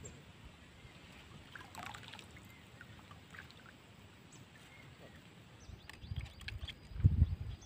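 Faint open-air ambience with a few short, faint high chirps. Near the end, water sloshes and splashes as a hand works inside a bucket standing in the water.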